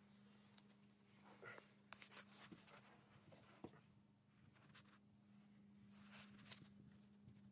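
Near silence: faint scratchy rustles and a few light clicks from a phone being handled and clothes shifting, over a low steady hum.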